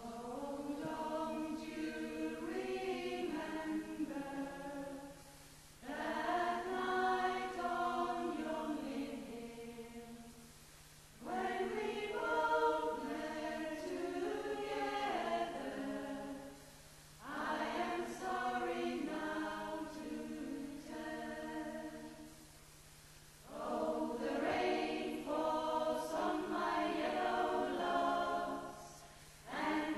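Women's choir singing unaccompanied, in phrases of about five to six seconds with a short breath between each.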